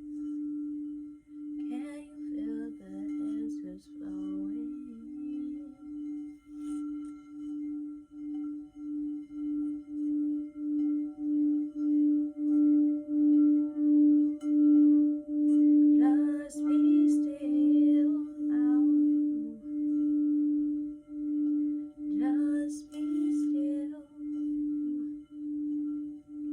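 Singing bowl sung by circling its rim: one steady tone that wobbles in regular pulses about once a second, swelling louder toward the middle and easing off again. A voice hums or sings briefly over it three times.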